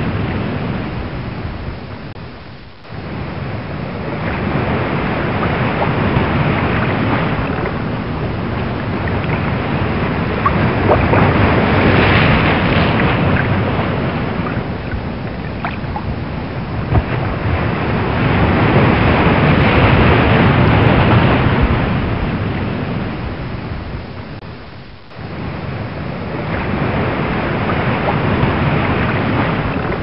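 Ocean waves and wind: a continuous rush of rough sea that swells and ebbs in slow surges, dropping away sharply twice, about three seconds in and a few seconds before the end.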